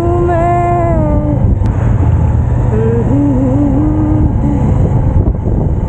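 Steady low rumble of a Bajaj Pulsar 150 motorcycle's engine and wind on the microphone while riding. A voice carries a few held notes of a tune for the first second or so, and again for a couple of seconds in the middle.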